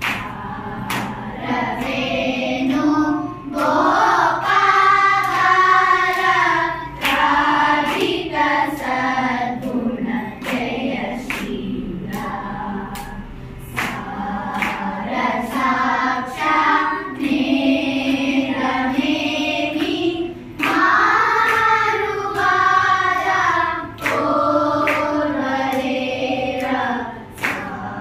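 A class of children singing a Carnatic swarajathi in unison with their teacher, with sharp hand claps keeping the tala throughout.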